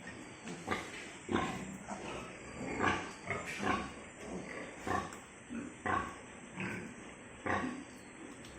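Pigs calling in a rapid, irregular string of short grunts and squeals, roughly one or two a second.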